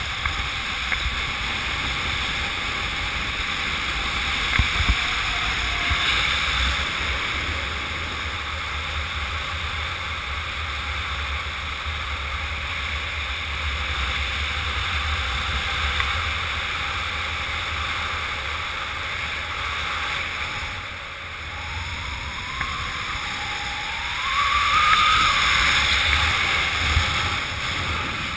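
Rushing wind over the camera's microphone in fast flight under a speed-flying wing: a steady rush with a low buffeting rumble. It grows louder for a few seconds near the end, when a brief rising whistle also sounds.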